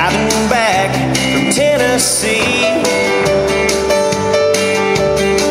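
Recorded country song playing: a singer's wavering voice over guitar and a steady beat.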